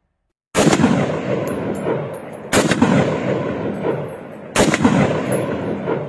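Heckler & Koch G3 / CETME 7.62 mm battle rifle firing three bursts about two seconds apart. Each burst begins sharply and trails off with echo until the next.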